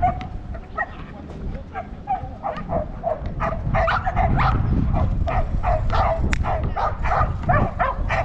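A dog barking in quick, repeated short barks, about three a second and louder from about halfway in, with wind rumbling on the microphone.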